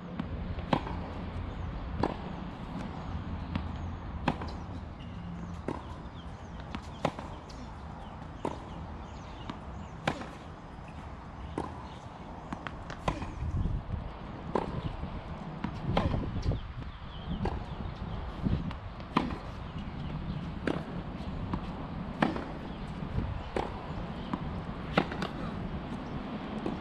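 Tennis rally on a hard court: a ball struck by rackets and bouncing, sharp pops about every second and a half, over a steady low background rumble.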